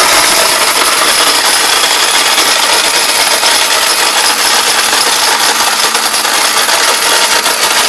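National 1600-watt mixer grinder running at full speed, grinding hard pieces of dried turmeric root into powder in its small stainless-steel dry jar: a loud, steady whirring grind.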